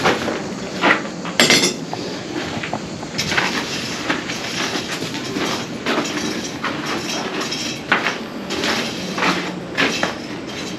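Blacksmith's hammer striking iron on an anvil in a series of irregular blows, over a steady background noise.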